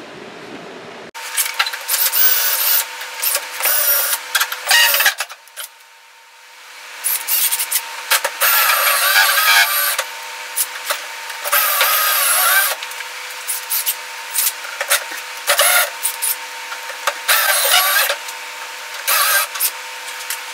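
Cordless drill boring into the rusty sheet steel of a 1963 Chevy C10's door pillar. It comes in on-and-off bursts of a few seconds, with a high, wavering screech as the bit cuts the metal, and a quieter pause of about two seconds a third of the way through. A different low noise cuts off abruptly about a second in.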